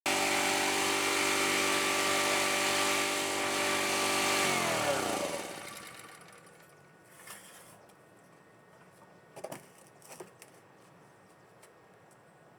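Airman EP2300 portable generator's small engine running steadily, then shut off about four and a half seconds in, its pitch falling as it coasts to a stop. A few faint knocks follow.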